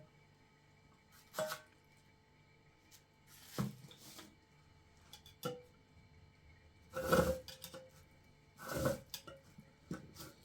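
Six or so separate knocks and clatters of household things being handled, a few with a short ring after them. The loudest come in the second half.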